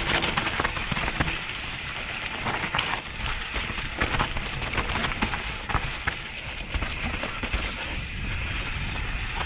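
Mountain bike rolling fast down a forest trail covered in dry leaves: knobby tyres crunching and crackling over the leaves and dirt, with frequent clicks and rattles from the bike and a low rumble underneath.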